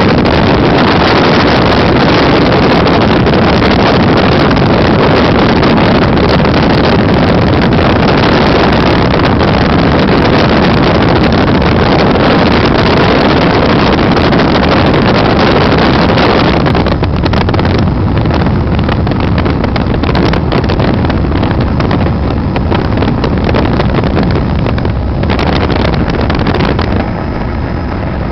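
Helicopter in flight: loud, steady engine and rotor noise with wind buffeting the microphone. It gets a little quieter about two-thirds of the way through and again near the end.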